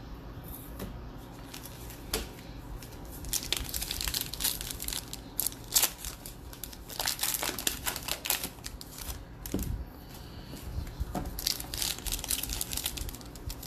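Foil wrapper of a 2020 Bowman baseball card pack crinkling and tearing as it is pulled open by hand. An irregular run of crackles picks up about three seconds in, eases briefly a little after halfway, then starts again near the end.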